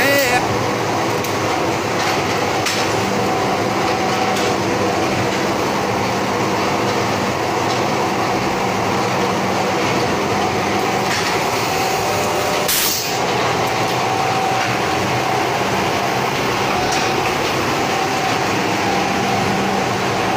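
Factory machinery running steadily: a constant mechanical din with a low hum and a few faint knocks.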